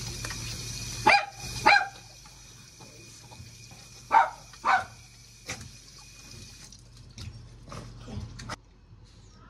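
A dog barking: two short barks about a second in, and two more about four seconds in, each pair about half a second apart, over water running from a tap.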